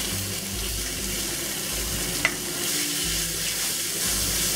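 Cod fillet slices sizzling in hot oil with ginger as they go into the stir-fry pan and are stirred with a spatula, a steady hiss with one sharp click about two seconds in. The sizzle grows a little louder about four seconds in.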